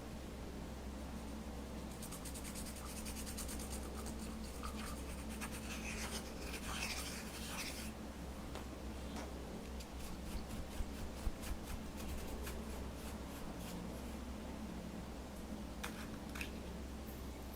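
Slime being mixed and worked, giving a dense run of fine crackling clicks for several seconds, then scattered single clicks, over a steady low hum.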